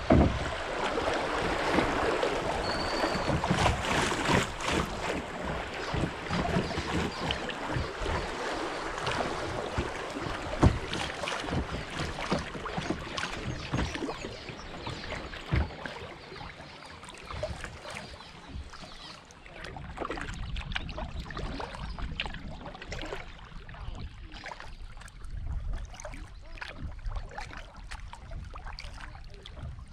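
Fast river water rushing and splashing around a kayak's hull through a riffle, with scattered splashes and clicks. It grows quieter in the second half as the current slows into calm water.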